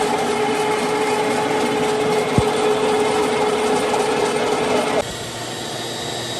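Concrete floor grinder's electric motor running steadily with a hum, with a single click about two and a half seconds in; the sound stops abruptly about five seconds in, leaving a quieter steady background.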